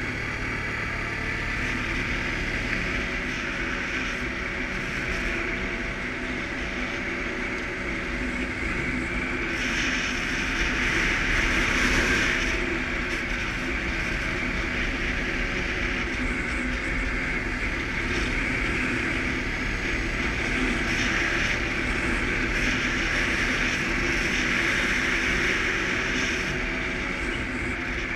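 Suzuki KingQuad ATV engine running while riding, its pitch drifting up and down with the throttle under a steady rush of wind and road noise. It gets louder for a few seconds around the middle.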